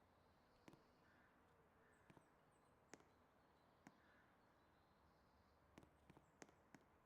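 Near silence: a faint background hiss with a few faint, scattered clicks, several close together near the end. No siren is sounding.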